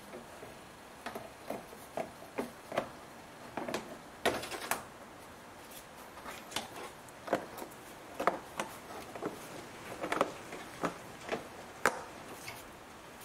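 Irregular plastic clicks and knocks as a Mercedes W203 C180 Kompressor's ribbed rubber air intake hose and plastic air duct are pushed and seated back onto the engine by hand, the loudest knocks about four seconds in and near the end.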